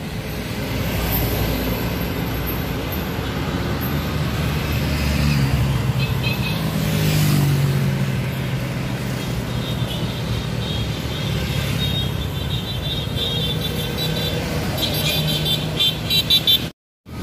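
Caravan traffic: vehicle engines running steadily, with car horns tooting in the second half, in quick repeated toots shortly before the sound cuts out near the end.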